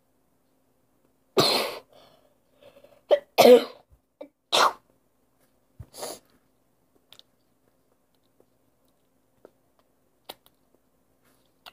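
A girl coughing about five times in a row, short hard coughs with the loudest in the middle, then stopping.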